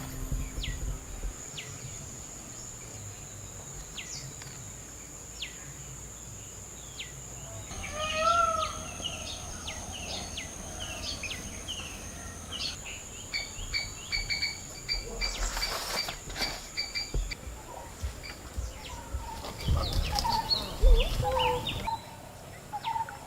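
Rural birdsong: several birds calling with short falling chirps and warbling phrases over a steady high-pitched insect drone. A few dull low knocks come near the end and are the loudest sounds.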